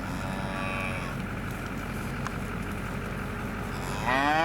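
Cattle mooing: a fainter moo in the first second, then a loud moo that starts near the end and rises in pitch. A steady low rumble runs underneath.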